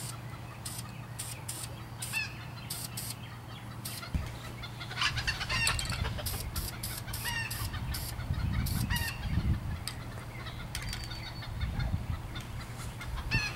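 Chickens clucking several times, over a steady low hum and repeated short bursts of high hiss.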